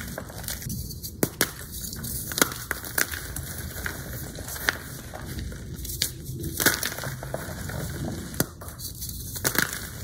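Hard blocks of Z-Athletic gym chalk crunching and crumbling as hands squeeze them into powder, with irregular sharp snaps among a steady soft crumbling.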